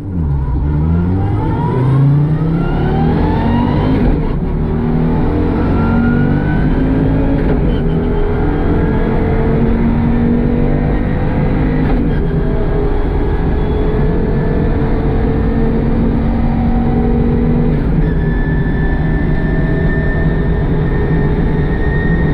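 Audi Quattro Group B car's turbocharged five-cylinder engine accelerating hard through the gears. Its pitch climbs and drops back at each shift in the first few seconds, then holds more steadily at high revs. The engine is running with a misfire.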